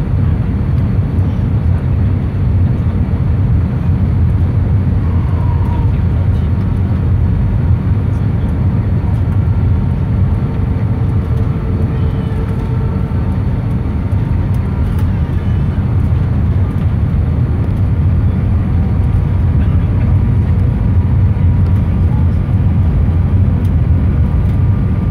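Steady low rumble of engine and airflow noise inside the cabin of an Airbus A319 on final approach, with a few faint steady tones over it.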